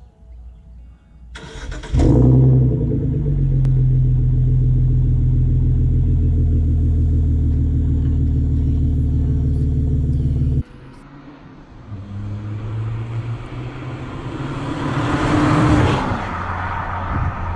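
BMW E46 coupe engine heard at its twin exhaust tips, starting up with a brief crank and catching loudly about two seconds in, then idling with a steady deep exhaust note until it cuts off abruptly a little past ten seconds. After the cut, a fainter engine tone and a rising rush of noise swell to their loudest near the end.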